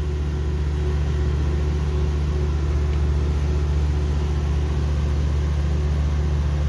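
Steady low drone of running machinery, an even hum that does not change.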